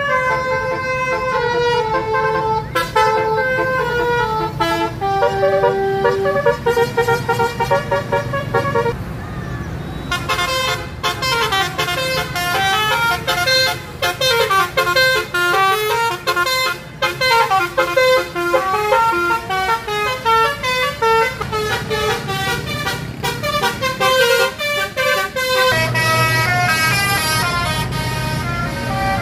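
Tour bus 'telolet basuri' melodic horns playing a tune: a long run of quick stepped horn notes rising and falling. The tune changes about ten seconds in, and again near the end, where a low steady hum joins it.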